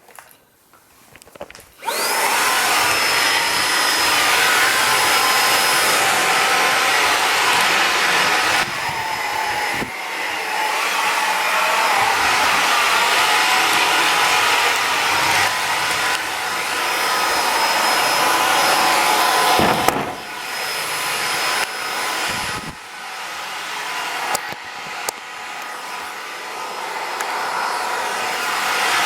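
Xiaomi cordless vacuum cleaner switched on about two seconds in and running, its motor giving a high whine over a loud rush of air. The sound dips briefly a few times as it is worked.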